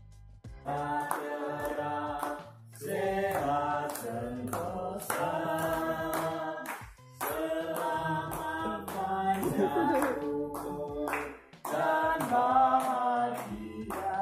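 Voices singing a birthday song in phrases, with steady clapping on the beat.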